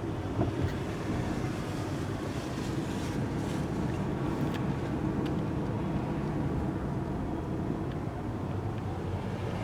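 Steady low rumble of a car driving, with engine and road noise, and a few faint clicks.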